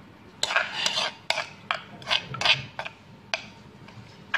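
A metal spoon stirs a thin chili-lime dressing in a mortar, scraping and clinking against the bowl in about eight quick strokes. The strokes die away near the end.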